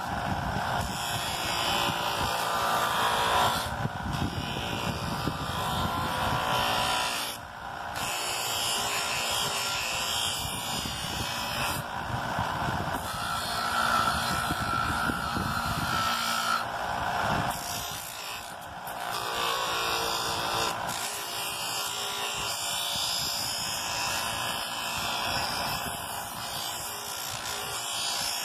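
Electric motor spinning a sanding disc while a boomerang's edge is pressed against it, a steady grinding noise that swells and eases as the piece is worked. The noise drops briefly about seven seconds in and again around eighteen seconds, as the piece comes off the disc. This is the pre-finishing stage, taking out imperfections before the shape is refined.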